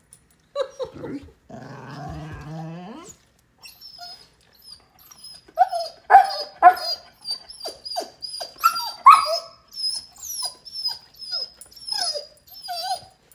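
German Shorthaired Pointer vocalizing in its talkative 'humming' way: two low, drawn-out grumbles, then a long run of short, rising and falling whimpers and yips with a thin high whine running under them.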